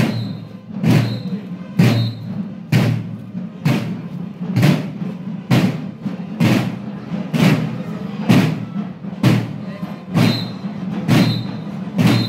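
Parade drum beating a steady marching pulse, a little more than one stroke a second.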